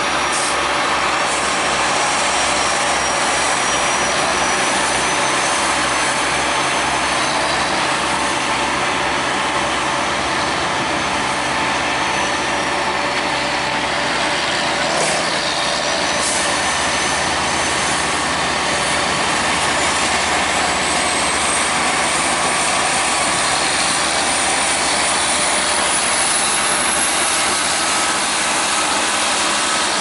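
Heavy machinery running steadily: a continuous engine noise, with a faint high whine that slowly rises in pitch in the second half.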